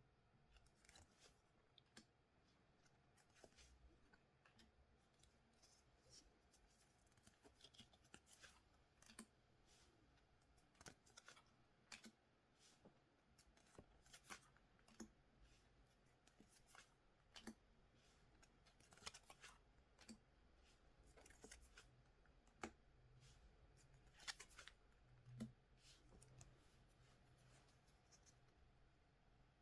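Very faint, irregular clicks and light rustles of trading cards and their packaging being handled, over near silence.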